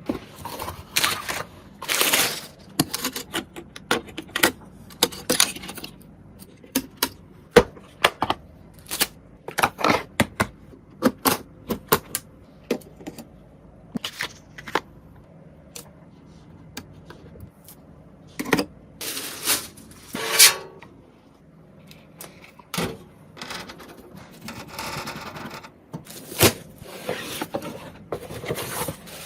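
Irregular clicks, taps and knocks of hard plastic and metal computer parts being handled and fitted together, with a few short scraping sounds.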